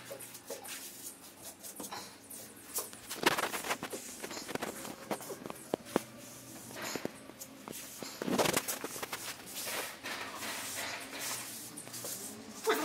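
Rubber grout float scraping and rubbing across porcelain floor tiles in uneven strokes, with scattered clicks and knocks. The loudest strokes come about three, seven and eight and a half seconds in.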